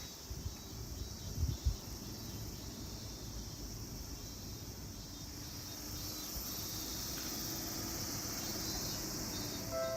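Quiet, steady outdoor background ambience: an even high hiss over a low rumble, with a couple of soft low bumps about a second and a half in.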